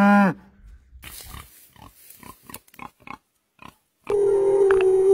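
A cow's moo ends with a falling pitch at the very start, then about three seconds of quiet, short animal grunts at irregular intervals. About four seconds in, a loud, long, steady whale call begins.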